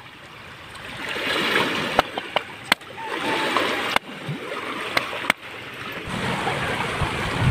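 Rushing stream water, with a few sharp knocks scattered through it.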